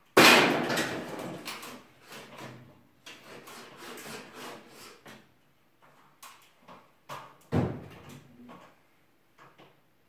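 Wooden boards and battens from ceiling demolition clattering and knocking: a loud crash right at the start, another about seven and a half seconds in, and lighter knocks and clicks between.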